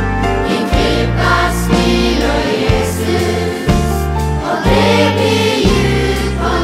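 A family choir of children and adults singing a Norwegian Christmas song in unison over a band, with steady bass notes underneath.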